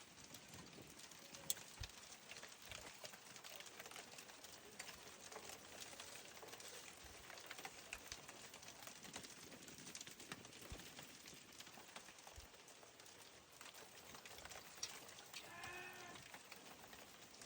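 Near silence: a faint hiss with scattered light ticks as snow falls. Near the end comes one short, distant yell from a neighbour.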